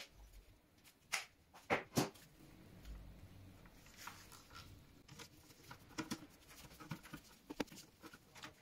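Handling noise from wiring a circuit breaker: sharp clicks and knocks as ferrule-tipped copper wires are fed into the breaker's screw terminals, over the rustle of the stiff cable and gloved hands. There are three strong clicks about a second or two in, then a run of lighter clicks from about six seconds, as a screwdriver is brought to the terminals.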